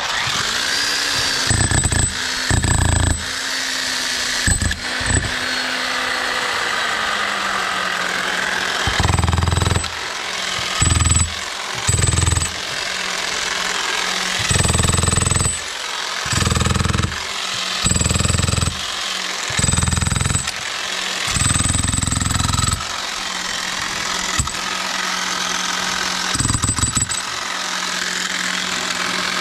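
Electric demolition hammer with a chisel bit chipping out a damaged concrete cinderblock, hammering in repeated bursts of a second or two, about a dozen times, over a steady background hum.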